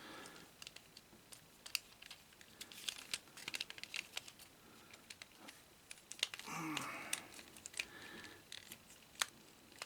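Plastic transforming action figure being handled: scattered faint clicks and snaps as its parts are pushed and pressed together to make the vehicle mode stay closed.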